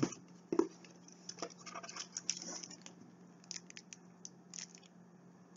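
Small items and packaging being handled: light rustling and scraping with scattered small clicks and taps, the sharpest about two seconds in.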